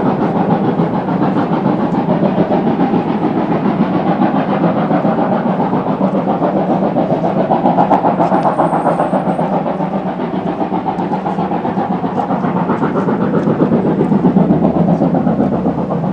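Steam locomotive working a passenger train, its exhaust beats coming in a rapid, even rhythm.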